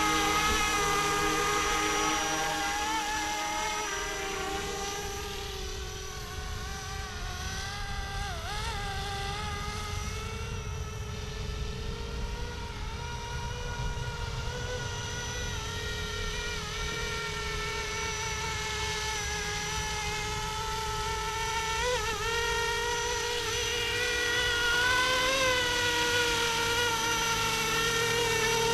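Electric 450-size RC scale helicopter flying: a steady whine of motor and rotors whose pitch wavers and dips as it manoeuvres, fading somewhat through the middle and growing louder again near the end.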